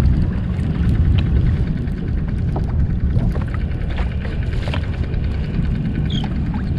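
Wind buffeting an action camera's microphone on an ocean kayak, a steady low rumble, with a few faint clicks over it.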